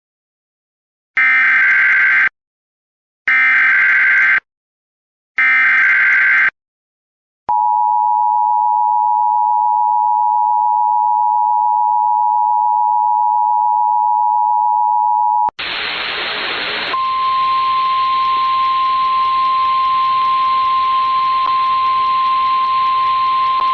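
Emergency Alert System tones for a tornado warning: three short bursts of the digital header data, then the two-tone attention signal held steady for about eight seconds. After that comes a burst of static, then a single steady alert tone over hiss, in the manner of NOAA Weather Radio.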